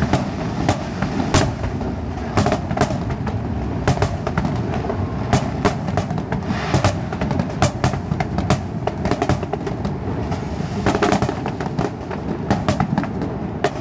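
Fireworks display: many bangs of shells bursting in irregular, overlapping succession over a continuous low rumble.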